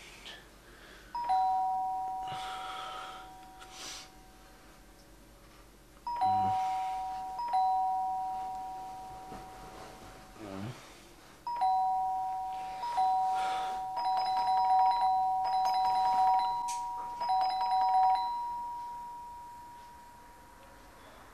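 Two-note electronic doorbell chime, a higher note followed by a lower one, rung over and over: first with pauses of several seconds, then pressed in quick succession a little past the middle, the last ring dying away slowly. Someone is leaning on the bell, ringing insistently at the door.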